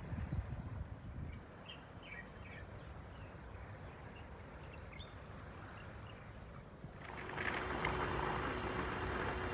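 Small birds chirping over a low rumble. About seven seconds in, this gives way to a tugboat's water cannon spraying a high arc of water: a louder, steady hiss of falling spray with a steady hum from the boat.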